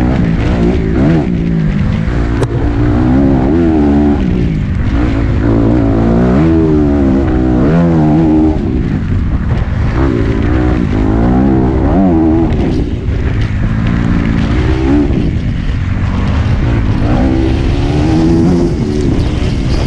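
Enduro motorcycle engine heard from a camera mounted on the bike, its pitch rising and falling over and over as the rider opens and closes the throttle on a rough dirt track, over a heavy low rumble.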